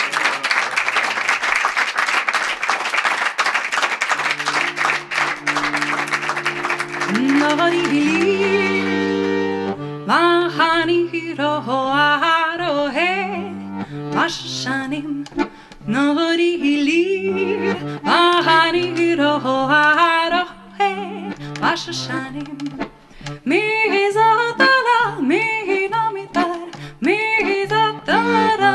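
Live folk music on button accordion and a bowed string instrument. It opens with a fast, dense passage of rapidly repeated notes, and held low notes come in. From about eight seconds a woman sings a wavering, ornamented melody over the accompaniment.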